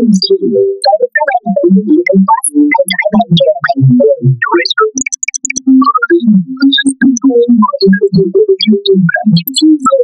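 Spoken character lines remade as a 'water sounds' edit: the rhythm and pitch of talk carried by a continuous choppy run of short synthetic pitched blips instead of words.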